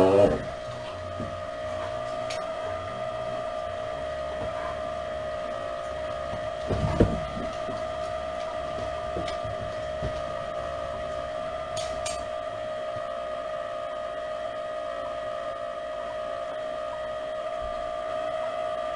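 A steady, unchanging hum-like tone with fainter overtones above it, and a single low thump about seven seconds in.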